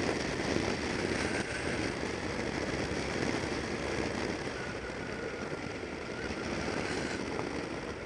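Motorcycle riding along at a steady pace: engine running under a steady rush of wind and road noise.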